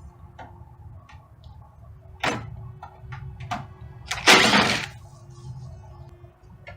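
Several sharp clicks and knocks, with a louder half-second scraping rush about four seconds in, over a low steady hum.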